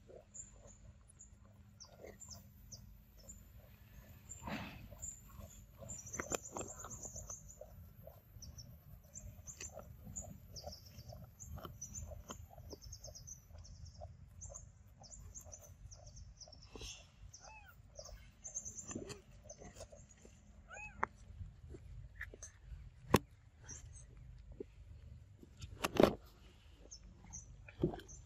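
Forest ambience with many short, high chirping calls, and a few short squeaky calls that rise and fall in pitch about two-thirds of the way in. Two sharp clicks near the end are the loudest sounds.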